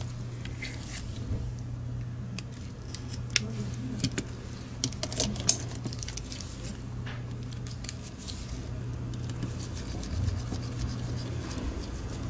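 Light, scattered clicks and taps of the opened Logitech MX Anywhere 3 mouse's plastic parts and small screws being handled during reassembly, the sharpest a few about five seconds in, over a steady low hum.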